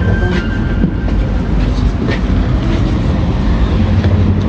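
Athens tram running: a steady low rumble with a few faint clicks and rattles.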